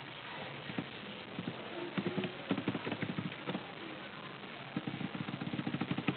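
Computer keyboard typing and mouse clicks: two runs of rapid light clicks over a steady background hiss.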